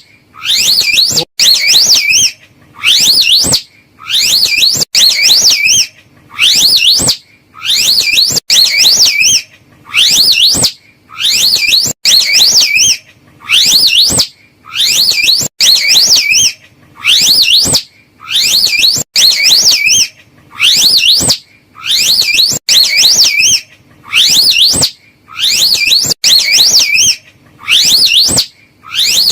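Slow loris call: a high, wavering, whistle-like call of under a second, repeated evenly about every one and a half seconds as a loop.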